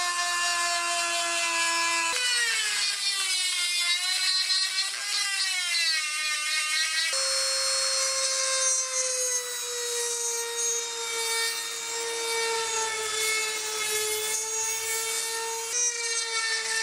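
Hand-held rotary tool running at high speed with a steady whine as its grinding and burr bits cut into the steel hammer head, a hissing grind over the top. The motor's pitch sags and recovers as the bit bites and jumps abruptly a few times.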